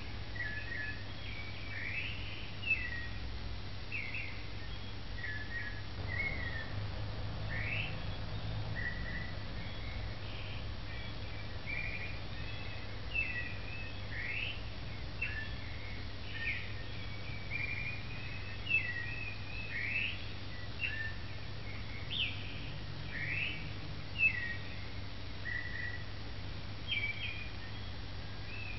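Birds chirping and whistling: many short calls and quick rising sweeps, repeated all through, over a steady low hum.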